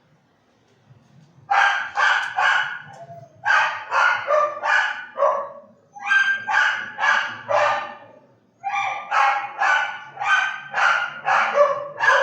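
Mixed-breed dog (vira-lata) barking over and over in quick runs of short, sharp barks, with brief pauses between runs, starting about a second and a half in.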